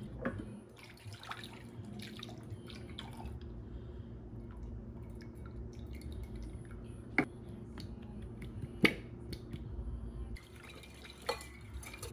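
Sauce being mixed in a bowl: liquid dripping and moving, with scattered small clicks over a steady low hum. Two sharp taps about seven and nine seconds in, and a few more clicks near the end.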